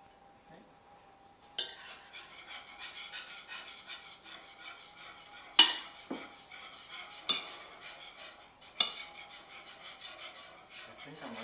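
A spoon stirring and scraping cubed chicken and mixed vegetables in a mixing bowl, starting a second or two in, with four sharp clinks of the spoon against the bowl, the loudest about halfway through.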